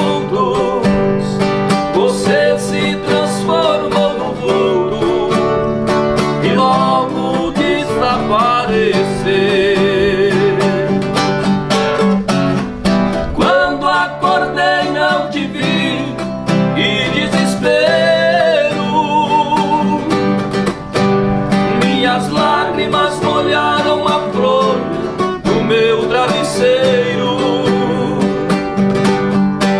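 Two acoustic guitars played together in a slow sertanejo song, with a voice singing the melody in parts.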